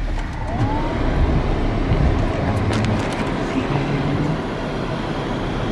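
A car driving: steady engine and road rumble, with a short rising tone about half a second in.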